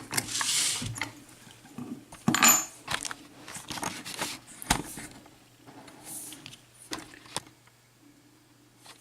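Keys and a Corbin Russwin interchangeable lock core being handled by hand: scattered small metal clicks, clinks and jingles, with a few brief scraping sounds.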